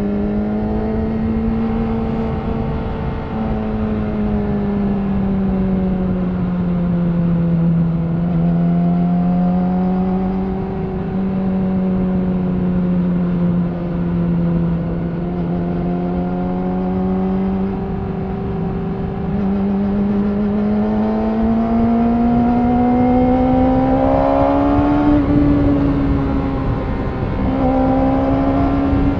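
Yamaha R6 inline-four engine through an Akrapovic slip-on exhaust, riding at steady mid revs with the note gently rising and falling. Near the end the revs climb, drop briefly and pick up again. Wind rush runs underneath.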